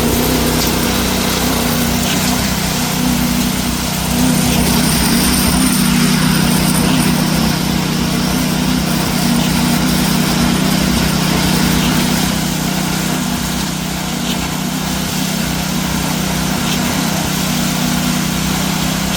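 A concrete truck's diesel engine running steadily, with an even low drone and no change in speed.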